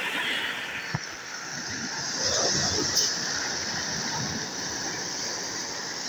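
Small sea waves breaking and washing up a pebble beach: a steady hiss of surf that swells about two seconds in as the foam runs over the stones, with a couple of brief sharp clicks.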